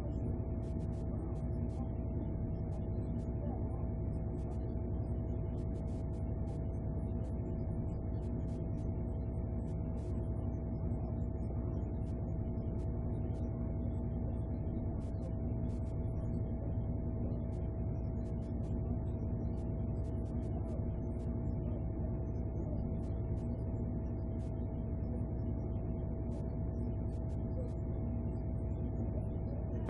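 Steady low hum with one constant mid-pitched tone running through it, unchanging throughout.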